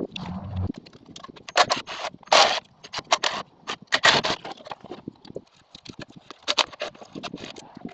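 Metal tools and engine parts clicking, clinking and scraping as a small single-cylinder engine is taken apart, with a few short louder rasps.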